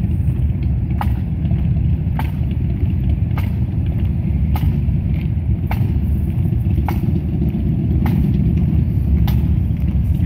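Pipe band drum taps keeping the marching step: a single sharp click a little more than once a second. Under it runs a steady low rumble.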